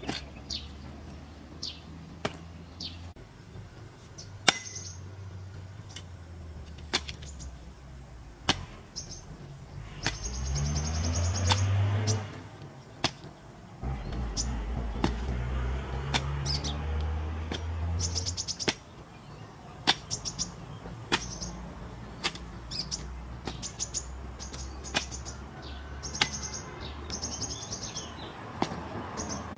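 Metal hoe blade chopping into dirt in irregular single strikes, while small birds chirp. A low engine drone comes up near the middle for a couple of seconds, drops, then returns for about four seconds.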